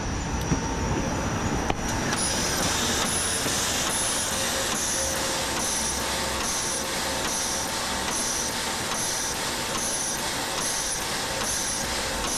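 Harz narrow-gauge 2-10-2 tank steam locomotive 99 7231-6 clattering for about two seconds as it draws to a stop at the platform. It then stands hissing steadily with steam, with a regular soft pulse about once a second.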